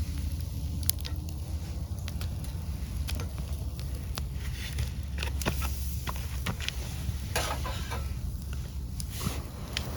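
Wood campfire crackling, with scattered sharp pops and a few short hisses, over a low rumble of wind on the microphone.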